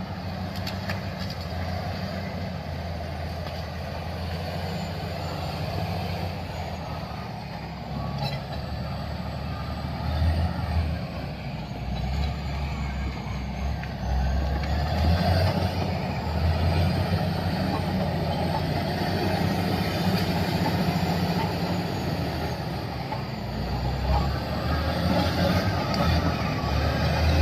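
Heavy road-construction machinery running: a deep engine rumble that swells and eases, getting louder about halfway through.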